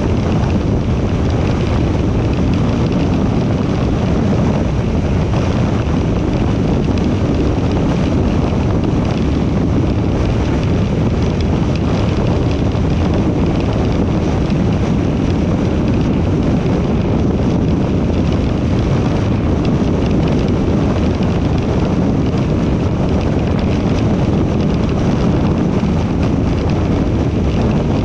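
Steady road and wind noise from a car driving at highway speed, with wind rumbling on the microphone.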